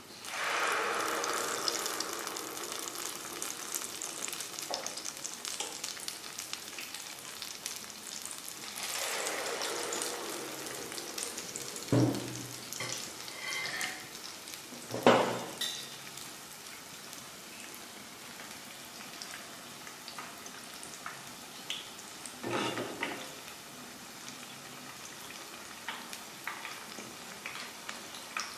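Dhuska batter of ground rice and chana dal deep-frying in hot oil in a kadhai: a steady sizzle that swells as fresh batter goes into the oil, at the start, about nine seconds in and again about twenty-two seconds in. Two sharp knocks stand out, near twelve and fifteen seconds.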